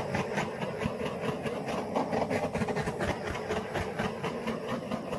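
Handheld blowtorch flame hissing steadily, with a fast flicker, as it is passed over wet acrylic paint.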